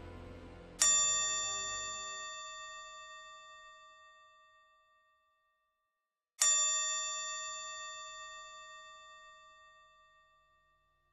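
A small meditation bell struck twice, about five and a half seconds apart, each strike ringing out and fading over about four seconds. Soft background music dies away at the start.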